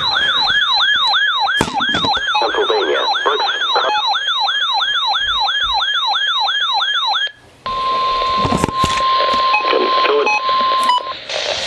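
Weather alert radio sounding its electronic alarm: a loud warbling siren that sweeps down in pitch about three times a second for about seven seconds. After a brief break comes hissy radio static carrying the steady 1050 Hz NOAA Weather Radio warning tone, which cuts off about a second before the end.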